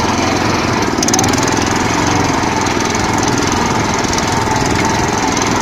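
Walk-behind tractor (motoblock) engine running steadily under load as the machine drives along a dirt track, heard close up from on board.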